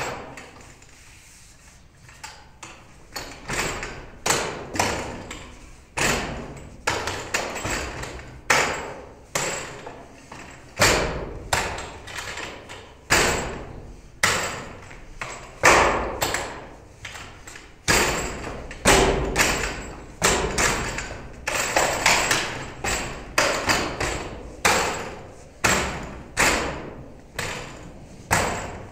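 Forearms and hands striking the arms and trunk of a wooden Wing Tsun training dummy (mook yan jong). The knocks come in an uneven run, about one to two a second, each with a short echo, after a brief pause near the start.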